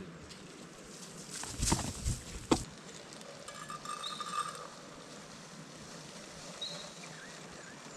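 Camp cookware being handled while breakfast is made: a few sharp knocks and clatters about two seconds in.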